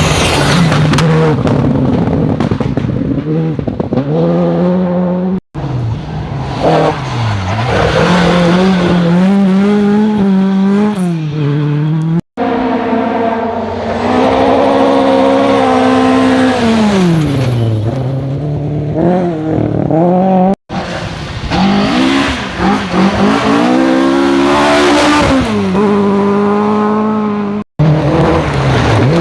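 Rally cars at full attack on a special stage, engines revving hard with pitch climbing and dropping through gear changes and lifts off the throttle. The sound comes as five short passes cut abruptly together.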